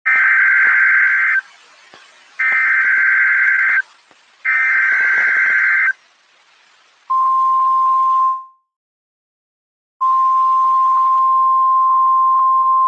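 Emergency alert SAME header: three bursts of harsh digital data tones, each about a second and a half long, with a short gap between them. Then a steady single-pitch alert tone, the NOAA Weather Radio warning alarm, which sounds for about a second, drops out, and comes back about ten seconds in to run on.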